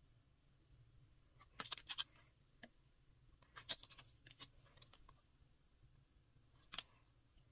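Faint clicks and scrapes of stiff photocards being slid and shuffled against each other by hand, in small clusters about two seconds in, around four seconds, and once near the end.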